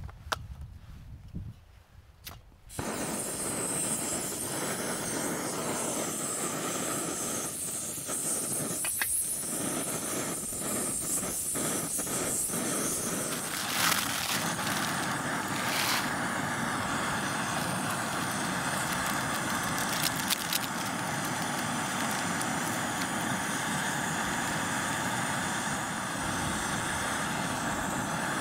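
Small canister backpacking stove lit about three seconds in, its burner then running with a steady hiss; a few clicks and knocks of handling come over it.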